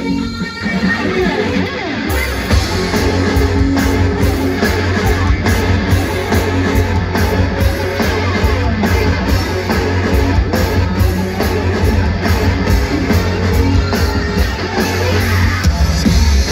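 Loud live electronic rock music from a concert sound system: a heavy bass-driven beat with guitar, its high, crisp beat pattern coming in about two seconds in.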